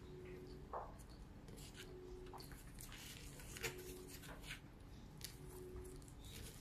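White plastic fork twirling sauced spaghetti and scraping and tapping on a disposable plate: a scattered run of small faint clicks and scrapes with soft squishing of the noodles.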